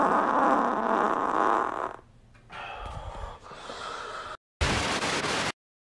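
A long, loud fart lasting about two seconds, then a quieter stretch with a low rumble and a short burst of noise, before the sound cuts off abruptly.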